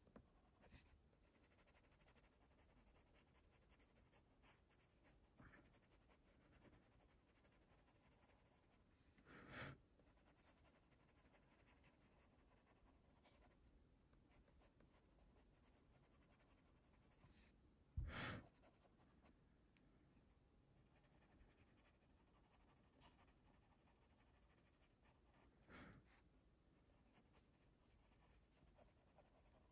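Faint scratching of a Faber-Castell Polychromos coloured pencil shading on paper, with a few louder strokes or knocks, the loudest a soft thump about eighteen seconds in.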